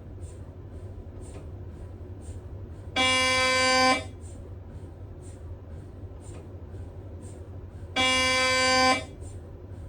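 Siemens Magnetom Spectra MRI scanner's gradient coils sounding a scan sequence: two loud buzzing tones about a second each, one about three seconds in and another about five seconds later. Between them run faint regular ticks about twice a second over a steady low hum.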